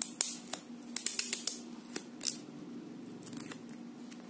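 Fingernail scratching and picking at the seal sticker on a small cardboard box: bursts of short, sharp scratches, thinning out about halfway through.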